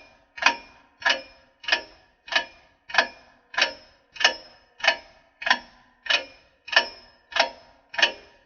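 Clock ticking, used as a countdown for thinking time: evenly spaced sharp ticks, about three every two seconds.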